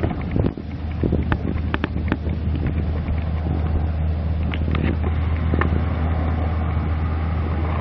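Steady low hum, with a dozen or so faint, short clicks scattered over it.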